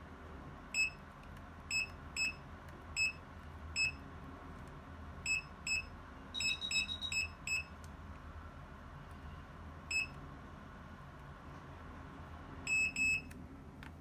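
Portable insulin cooler's control panel beeping as its buttons are pressed: about fifteen short, high beeps at irregular intervals, with a quick run of them over a longer, higher tone about six and a half seconds in. Two longer beeps near the end come as the unit is switched off.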